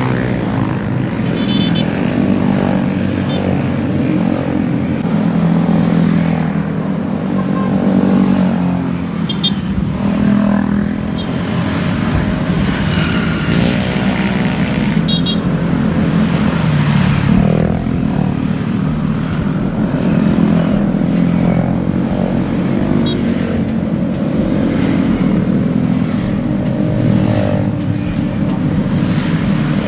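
A stream of scooters and motorcycles riding past one after another, their engines running in an overlapping, steady sound whose pitch rises and falls as each bike goes by.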